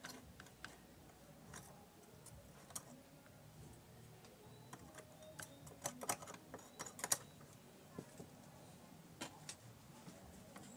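Irregular light clicks and taps of small parts and tools being handled at the needle end of a Singer portable sewing machine, with a quick run of sharper clicks a little past the middle.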